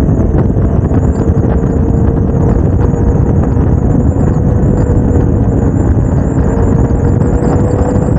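Heavy wind buffeting on a motorcycle-mounted camera's microphone over the steady drone of a Suzuki GSX-R750's inline-four engine cruising at a constant speed.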